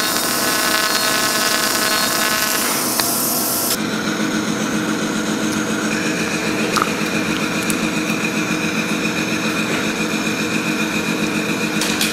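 A steady machine hum and hiss with several constant whining tones. A bright high hiss drops away about four seconds in, leaving the lower hum and whine.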